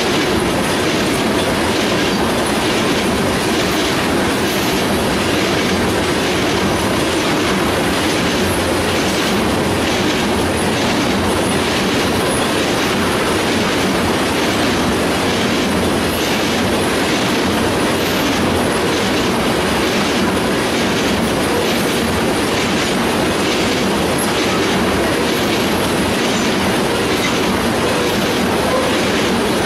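A freight train of tank cars rolling steadily past close by: a constant rumble of steel wheels on the rails with a running clatter of wheels over rail joints.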